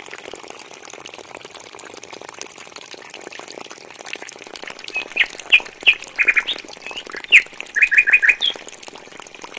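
Small bird chirping: a string of short chirps starting about five seconds in, some in quick runs of three or four. Under them, a steady light hiss of water pouring from a miniature pump's outlet pipe.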